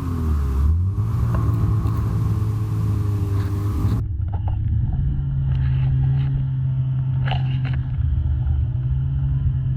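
Snowmobile engine running, its pitch falling in the first second. About four seconds in the sound changes abruptly, losing its high hiss, and a steady low engine note holds from there.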